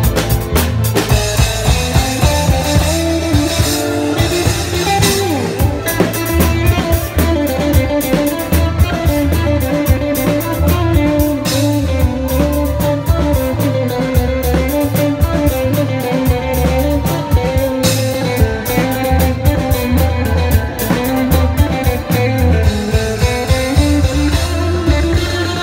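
Live band playing loud amplified music: electric guitar and keyboard over drums, with a steady pulsing bass line.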